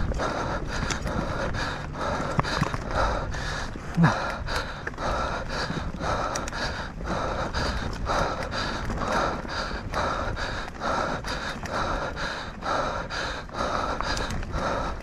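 Mountain bike racer panting hard in quick, even breaths, about two a second, over a steady low rumble, with one sharp knock about four seconds in.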